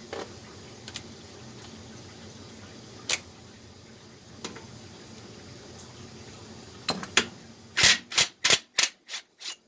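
Sharp metallic clicks of a ratchet wrench working the 1/2-inch bolt holding the exhaust on a Tecumseh snowblower engine: a few scattered clicks, then a quick run of about six near the end.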